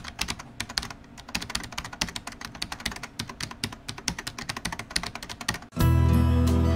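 Rapid computer-keyboard typing clicks, a typing sound effect. Near the end they stop and louder, calm instrumental music with sustained low tones comes in suddenly.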